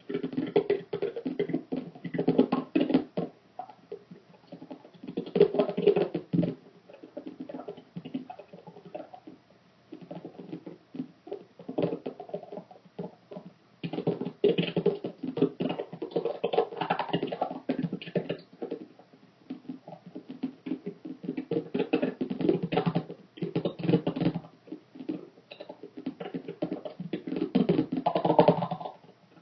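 Rapid, irregular tapping and clicking, coming in clustered bursts of one to four seconds with short pauses between them.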